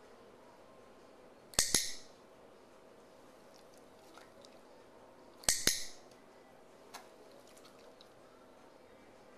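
Dog-training clicker pressed twice, about four seconds apart, each press a sharp double click; the clicks mark the dog's eye blinks. A fainter single tick follows a little after the second click.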